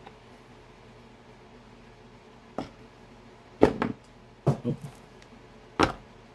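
Four sharp knocks on a hollow plastic R/C model fuel tank as it is handled while the fuel lines and weighted clunk are worked in through its neck. They come in the second half, about a second apart, and the second is the loudest.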